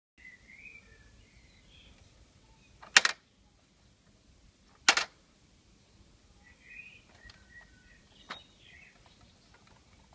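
Small birds chirping in the background, with two loud sharp clicks about three and five seconds in and a fainter click near the end.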